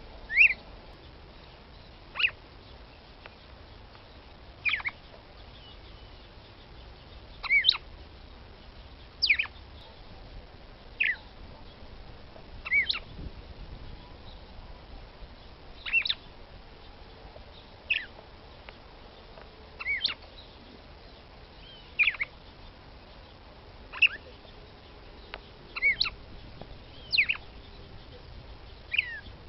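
Female red-cowled cardinal (Paroaria dominicana) giving short, sharp call notes, about one every two seconds, some in quick pairs.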